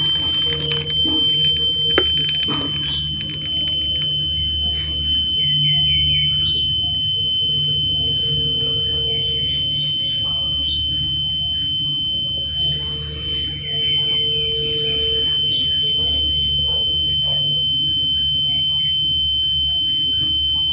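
Piezo buzzer of a homemade rain alarm sounding one continuous high-pitched tone, triggered by water bridging the foil strips of the sensor plate. A single sharp click about two seconds in.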